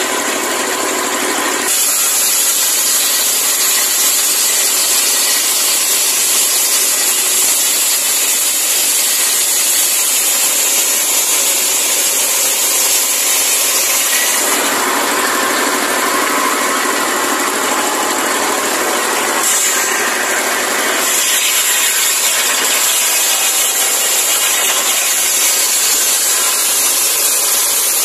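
Bench circular saw, belt-driven by a 24 hp diesel engine, ripping a palm log lengthwise: a loud, steady mix of engine and cutting blade. The cutting noise grows fuller from about halfway and eases again a little after two-thirds of the way.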